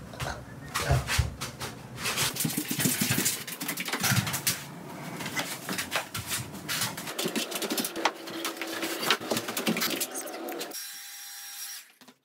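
Rustling of clothing and irregular knocks and handling noises close to the microphone as a man pulls off a shirt and tie and puts on another shirt. The sound thins out and cuts off just before the end.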